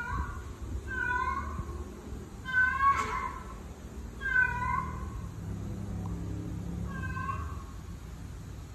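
A female cat in heat calling: five drawn-out meows, each about half a second long, with a longer gap before the last. A sharp click comes about three seconds in.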